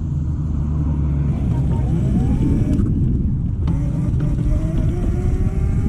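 Vespa scooter under way with a dense low rumble. Its pitch rises twice as it accelerates, once from about a second in and again in the second half.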